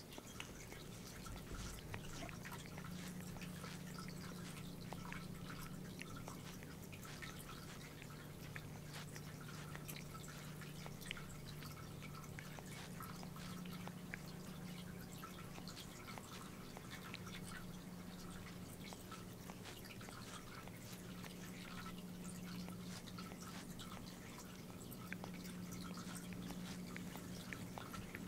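A light gray tabby cat grooming, its tongue licking its fur in a steady run of small wet clicks. A steady low hum lies underneath.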